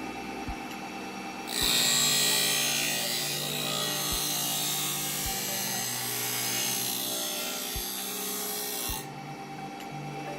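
Table saw running with an abrasive disc on its arbor, as a planer knife clamped in a sharpening jig is fed across the disc: a loud, steady grinding scratch starts about a second and a half in and stops shortly before the end, leaving the saw running. A few short low knocks come at uneven intervals.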